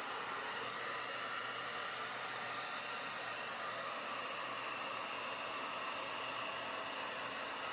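Hair dryer running steadily on high fan with cool air, a constant even rush of air.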